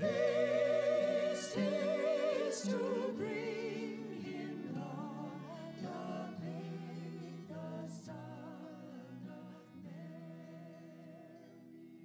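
Music with vibrato singing voices, gradually fading out.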